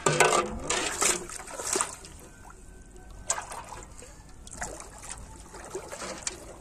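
Shallow water splashing and sloshing as a person wades and pushes a metal basin through it, with a cluster of louder splashes in the first two seconds and softer, scattered ones after.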